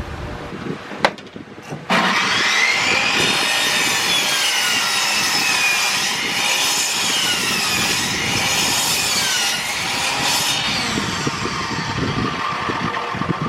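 Power saw cutting through lumber. The saw starts about two seconds in and runs under load, its pitch wavering as the blade works through the wood, and it eases somewhat after about ten seconds.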